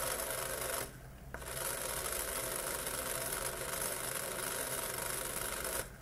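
Small brushed DC motor spinning freely with a steady high whir, powered through an L293D driver and switched by a push button. It cuts out for about half a second about a second in, then runs again until it stops once more near the end.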